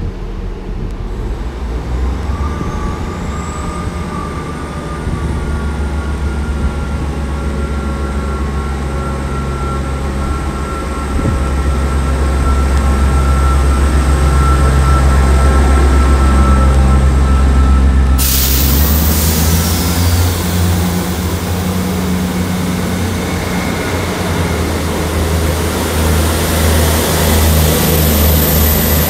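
Two coupled Class 159 diesel multiple units pulling away from a platform and accelerating past, their underfloor Cummins diesel engines working under load. The engine sound builds over the first dozen seconds, and about eighteen seconds in a sudden loud rushing noise joins as the rear unit goes by.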